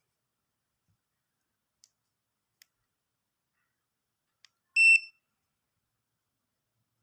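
Digital multimeter's buzzer giving one short, high beep about five seconds in, preceded by a few faint clicks.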